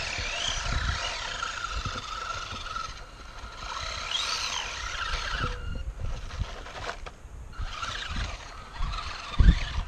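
Electric motor of a 1/18-scale ECX Torment RC short course truck whining up and down in pitch as it is throttled, its tyres spinning for grip on bare rock. A thump near the end.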